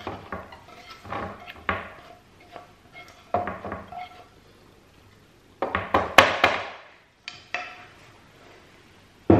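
Clinks and scrapes of metal cookware as chicken tikka is scraped out of a frying pan into a stainless steel pot. Scattered knocks, with the loudest cluster a little past halfway.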